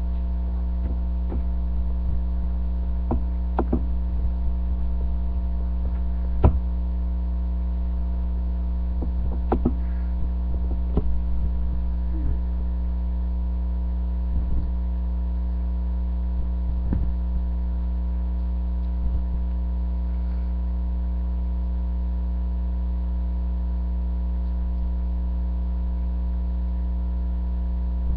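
Steady electrical mains hum with several even tones stacked above it, running unchanged, with a few faint, irregular clicks and knocks scattered through it.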